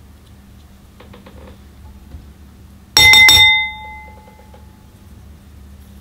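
A hard item clinks sharply three times in quick succession about halfway through, leaving a short bell-like ring that dies away within about a second. Faint clicks and rattles come before it.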